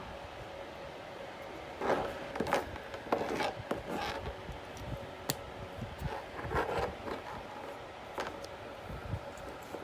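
Irregular scraping, rustling and sharp clicks over a faint steady hum, starting about two seconds in and easing off near the end.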